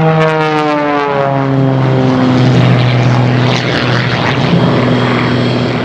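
MXS-RH aerobatic monoplane's piston engine and propeller at high power on its takeoff run. The engine note drops in pitch over the first couple of seconds as the plane passes, then holds a steady lower drone.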